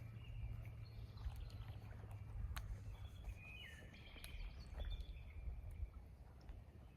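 Faint outdoor ambience: a steady low rumble with small birds chirping, busiest about three and a half to five seconds in, and a few light clicks.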